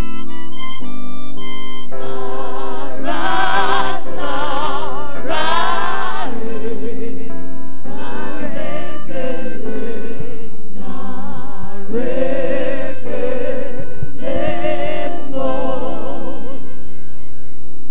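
Harmonica played into a microphone with a strong wavering vibrato, in phrases of held melody notes over backing music of sustained keyboard chords and bass. The harmonica drops out near the end, leaving the backing.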